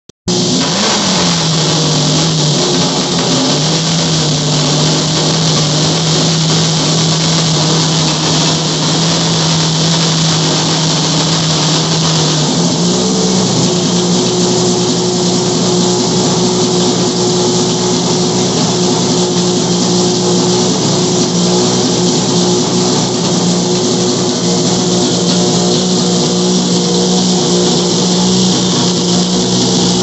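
Turismo Carretera Dodge race car engine running loudly on a chassis dyno. It settles to a steady speed about a second in, then is raised to a higher, steady speed about 13 seconds in and held there. The engine was rebuilt after a failure.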